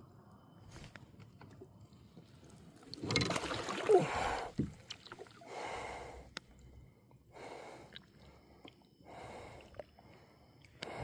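Water splashing and sloshing at a kayak: a loud splash about three seconds in lasting over a second, then three shorter water swishes about every one and a half seconds.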